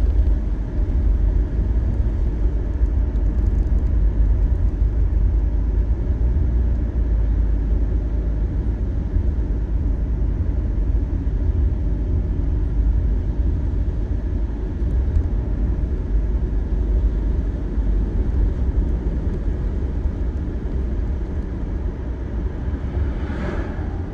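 Steady low rumble of a car driving, heard from inside the cabin, with its tyres on wet pavement. A brief hiss swells near the end.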